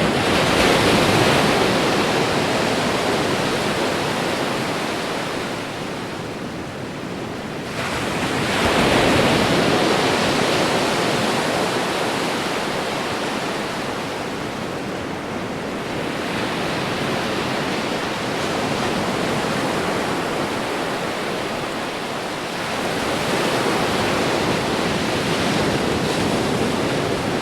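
Ocean waves breaking on a beach: a continuous rushing wash that swells as each wave breaks, loudest about a second in and again about nine seconds in, with smaller surges later, then eases back between them.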